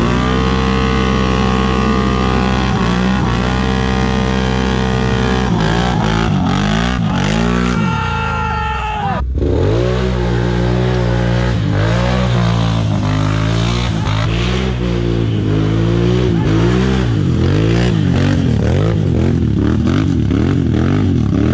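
ATV engine revving hard on a steep dirt hill climb, held at high, steady revs at first, then rising and falling as the throttle is worked. The sound cuts off sharply about nine seconds in.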